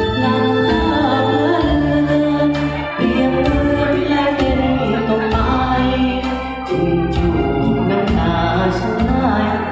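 Karaoke backing music playing loud through the hall's PA loudspeakers, with held bass notes that change every second or so under chords and a melody.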